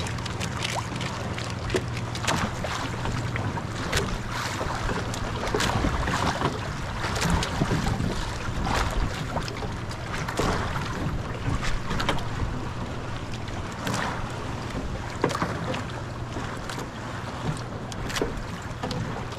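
Wind buffeting the microphone over choppy sea water splashing and slapping around a small wooden outrigger boat, with a steady low hum beneath and frequent short splashes.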